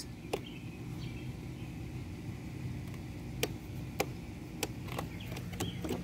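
Steady low hum of a running LG window air conditioner with a rotary compressor. Several sharp clicks come over it, the GE window air conditioner's selector switch being pressed while the unit fails to start, a switch the owner suspects is bad or corroded.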